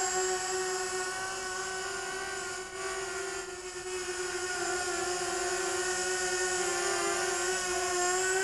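Eachine EB185 racing quadcopter's brushless motors and propellers whining steadily in flight, the pitch wobbling slightly with the quad's twitchy hover corrections. The whine grows fainter about three seconds in as the quad moves away, then louder again.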